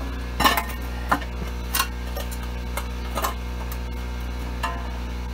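Sharp metal-on-metal clinks and taps, about five spread irregularly over a few seconds, from a flat-blade screwdriver working at the brake rotor and wheel hub on the trailing arm. A steady low hum runs underneath.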